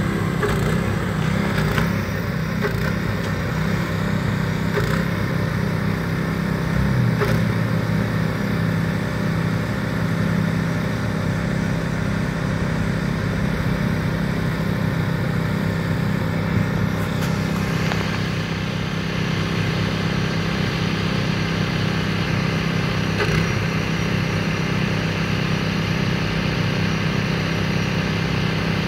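A machine engine running at a steady speed, a constant low drone.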